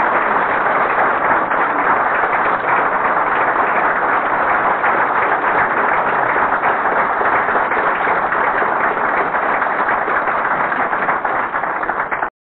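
Audience applauding steadily after a talk, a dense patter of many hands clapping that cuts off abruptly near the end.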